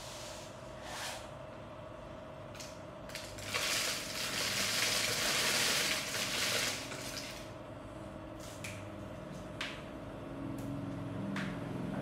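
Paddy rice grain poured into a large plastic bottle: a rushing rattle of grain for about three seconds, starting about three and a half seconds in. It is followed by a few light clicks and taps as the bottle and its screw cap are handled.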